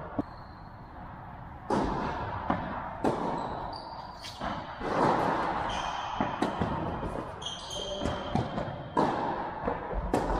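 Tennis rally on an indoor hard court: sharp racket strikes and ball bounces about every one to one and a half seconds, each echoing in the hall, with short high squeaks of shoes on the court.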